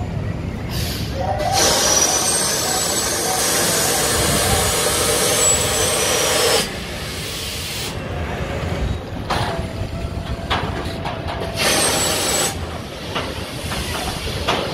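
Air hissing from the Astro Tower ride's pneumatics as the gondola comes down the tower. The hisses start and stop sharply: a short one, then a long one of about five seconds that cuts off suddenly, then two shorter ones.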